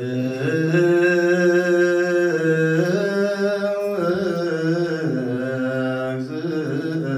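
Ethiopian Orthodox liturgical chant in Ge'ez: a man's voice sings long held notes that step up and down in pitch, with a short break about four seconds in.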